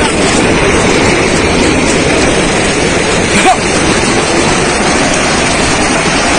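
Landslide of jade-mine waste collapsing into a flooded mine pit: a loud, steady rushing roar of sliding earth and surging water. A short cry cuts through it about three and a half seconds in.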